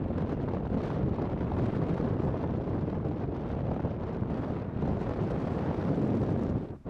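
Wind buffeting the microphone over the low rumble of a freight train hauled by two diesel locomotives approaching on a curve. The sound drops out sharply just before the end.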